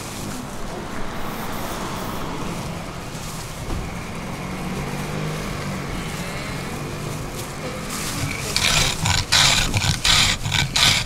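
A wooden plane scraped across a slab of peanut brittle, shaving it in a quick run of about half a dozen strokes near the end. Before that, a steady low engine drone like a vehicle running nearby.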